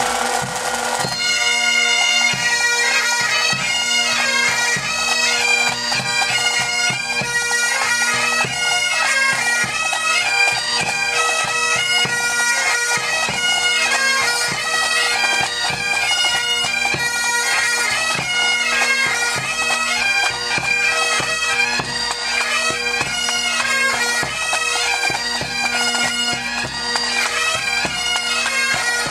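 Bagpipes playing a tune over their steady drones, with a drum beating along.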